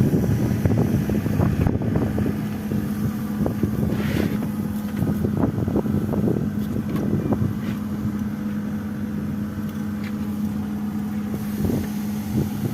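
JCB backhoe loader's diesel engine running steadily, with scattered short metallic clicks and knocks over it, busiest in the first couple of seconds.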